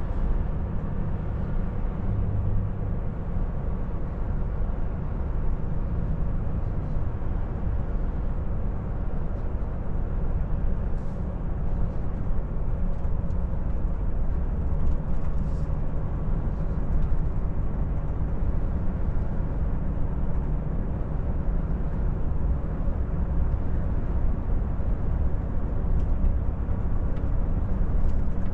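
Cab interior of a Volvo FH460 truck cruising steadily at about 50 km/h: a steady low drone from its 13-litre six-cylinder diesel engine mixed with tyre and road noise.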